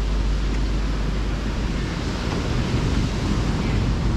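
Wind rumbling on the microphone over a steady wash of ocean surf.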